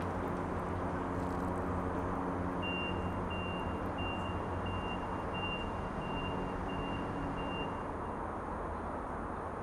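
A vehicle's reversing alarm beeping, about eight evenly spaced high beeps at roughly one and a half a second, starting about three seconds in and stopping near the end, over a steady low engine rumble.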